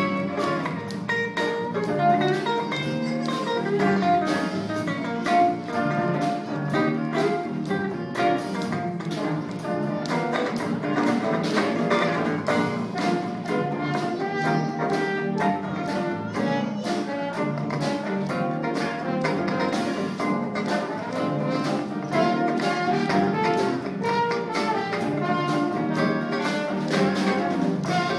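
A large ensemble of saxophones and guitars playing a jazz piece live, with a steady beat.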